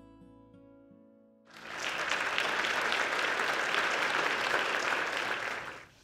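The last notes of soft guitar music fade out. From about a second and a half in, an audience applauds steadily, dying away just before the end.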